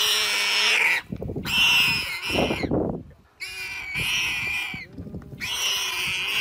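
An animal pinned down by a leopard squealing in distress: four long, shrill squeals, each a second or more, with short breaks between them.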